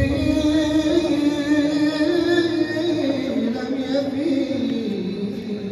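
A solo male voice singing a mawwal: one long melismatic phrase with wavering ornaments, held high and then stepping down in pitch near the end.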